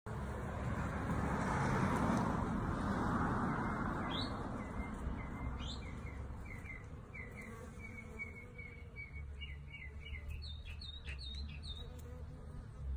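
Honey bee buzzing at close range as it forages on small white flowers, a low steady hum, while small birds chirp in quick series of short, rising calls from a few seconds in. A rushing noise is loudest in the first few seconds.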